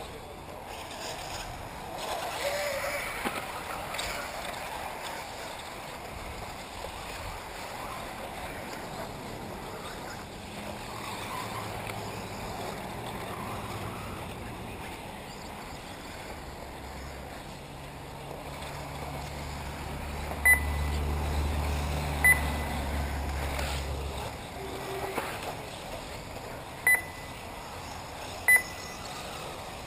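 Four short, high electronic beeps in two pairs, each pair under two seconds apart, over a steady outdoor hiss, with a low rumble rising and falling in the second half.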